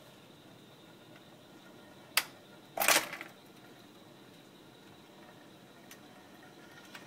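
Record-changer mechanism of a 1965 Sears Silvertone console stereo cycling: a sharp click about two seconds in, a louder clatter a moment later, a faint click near the end and a thump right at the end.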